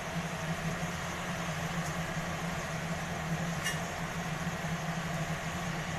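Mustard-paste gravy simmering in a kadai, a steady hiss over a constant low hum, with a couple of light clicks as fried pabda fish are set into it with a spatula.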